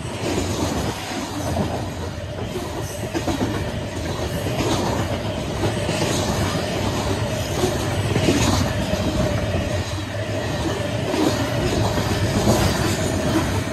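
Freight train of coal gondola cars rolling past at close range: a steady rumble of wheels on the rails, with repeated clatter as the wheels cross rail joints.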